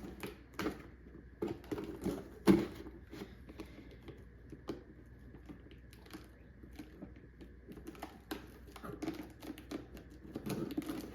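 Hands working at a cardboard shipping box to get it open: irregular taps, scratches and clicks on the cardboard, with one sharper knock about two and a half seconds in.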